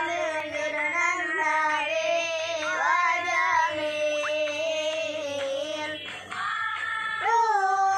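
A young boy singing an Islamic sholawat into a handheld microphone, drawing out long wavering notes phrase by phrase. There is a short break about six seconds in before the next phrase begins, a little louder.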